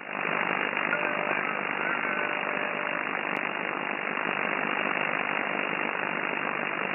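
Steady hiss of band noise from an amateur SSB receiver, a FLEX-1500 software-defined radio, in the gap after a station stops transmitting. It cuts in as the voice ends, and a couple of faint whistling tones show through it in the first few seconds.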